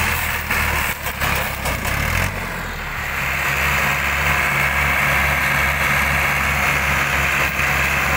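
Massey Ferguson tractor's diesel engine running steadily under load as it pulls a loaded sugarcane trolley. There are a few sharp knocks in the first two seconds. About three seconds in, the engine note evens out and gets slightly louder.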